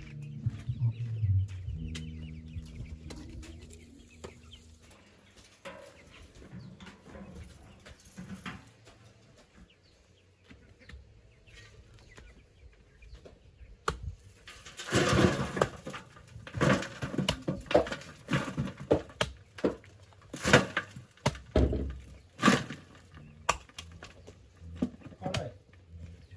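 Chickens clucking and squawking. The sound is faint at first and gets loud and busy in the second half, with irregular sharp bursts. A tail of background music fades out in the first two seconds.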